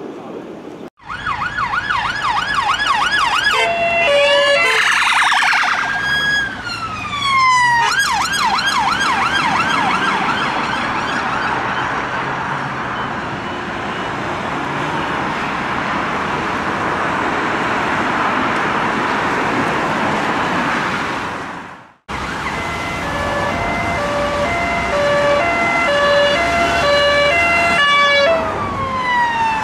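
Emergency vehicle sirens on UK response vehicles: fast yelp and slower wail sweeps, with loud traffic noise in between. After a break, a police car's two-tone hi-lo siren alternates between two notes, then switches to a wail near the end.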